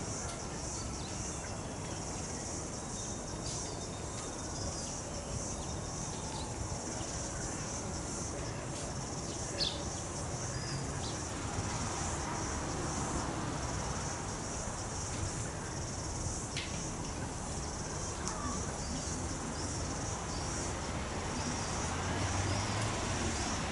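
A steady high-pitched insect chorus over a low, even background rumble, with a few short chirps about ten and sixteen seconds in.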